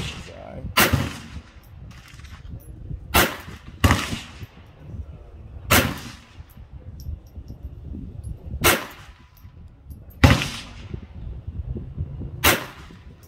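Ruger Mark IV Tactical .22 LR semi-automatic pistol fired in slow aimed single shots: about seven sharp cracks, one to three seconds apart, each with a short fading echo.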